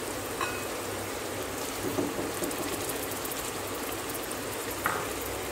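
Onions and garlic-ginger paste sizzling in hot oil in a steel pot: a steady frying hiss, with a couple of light clicks about half a second in and near the end.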